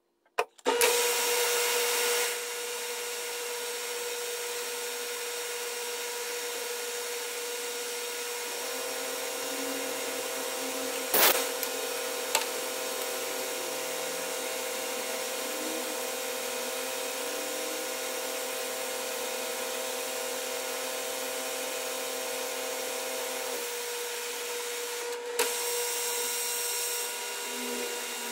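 Metal lathe running steadily while turning a small metal part with a carbide cutting tool, a steady hum with several constant tones. A louder hiss about a second in, and sharp clicks about eleven seconds in and again near the end.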